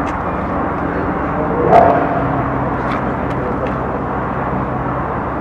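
Steady outdoor background noise with a low, engine-like hum underneath. There is a brief louder sound about two seconds in, and a few sharp clicks a little later.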